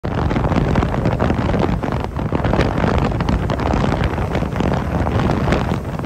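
Gale-force wind buffeting the microphone in a continuous low rumble, mixed with rough sea surging and breaking over the rocks of a breakwater.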